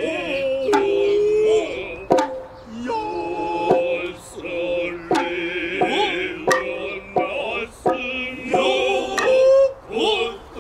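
Noh hayashi music: sharp, irregular strikes of the taiko stick drum and other drums, with the drummers' drawn-out kakegoe calls and a high, wavering nohkan flute line over them.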